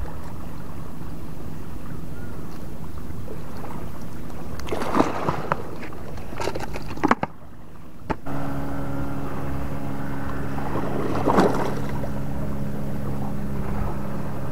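Wind buffeting the microphone with a few short handling knocks and rustles. After a cut about eight seconds in, a steady low engine drone joins the wind.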